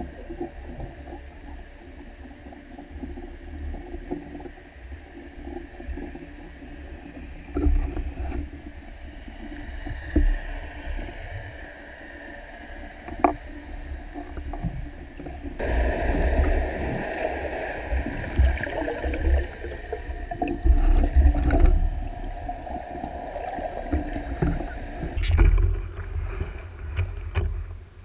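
Underwater hum of a passing ship's engine and propeller, a steady drone with a few constant tones that grows louder about sixteen seconds in, over low knocks and water rush against the camera housing. Near the end the camera comes up through the surface with some splashing.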